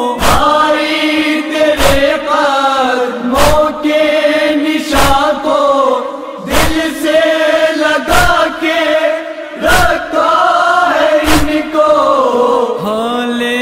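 Male voices chanting a noha refrain, over a deep thump about every one and a half seconds: the beat of matam (chest-beating).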